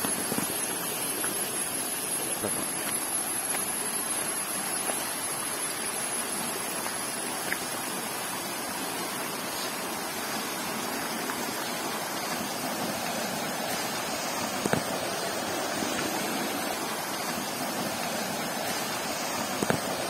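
Steady rush of flowing water from a rocky hill stream and waterfall, with a few short clicks over it.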